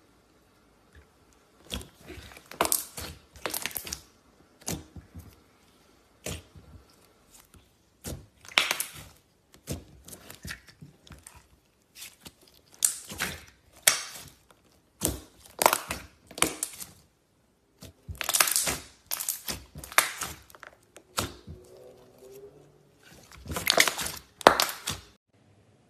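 Clear glitter slime being pressed, poked and stretched by hand, giving irregular clusters of sharp sticky clicks and crackling pops every second or so.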